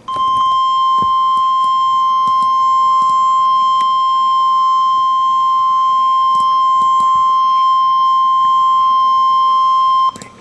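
NOAA Weather Radio warning alarm tone: a single steady, high-pitched tone (1050 hertz) held for about ten seconds, then cut off abruptly. It signals that a warning broadcast follows.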